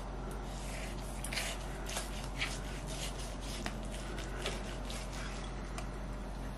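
Carving knife slicing through a roast chicken's crisp skin and breast meat: irregular short crisp scrapes and soft squishing sounds, over a steady low hum.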